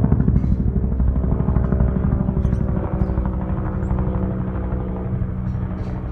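Air ambulance helicopter flying over, its rotor beating rapidly over a steady engine hum; the beat is strongest at first and eases off somewhat as the helicopter moves away.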